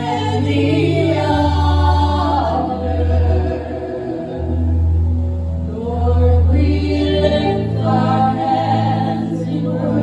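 Gospel singing, with sung phrases over long held low accompaniment notes that change pitch every second or two.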